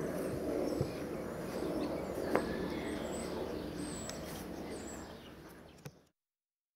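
Distant jet airliner passing overhead: a steady low rumble of its engines that slowly fades away, with a few faint high bird chirps. The sound cuts off suddenly about six seconds in.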